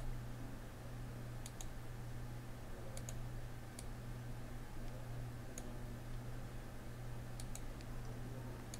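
Faint, scattered clicks of a computer mouse, about ten, some in quick pairs, over a steady low hum.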